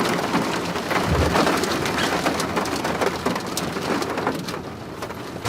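Steady rain falling, heard as a dense hiss of many separate drops, with a brief low thump about a second in; it eases slightly near the end.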